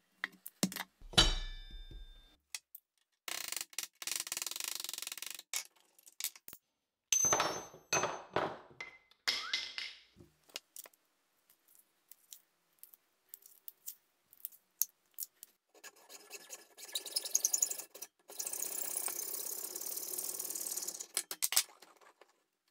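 Hand-tool and material handling on a wooden workbench: a sharp knock about a second in, then several stretches of rasping noise, the longest, about five seconds, near the end, with small clicks and taps between them.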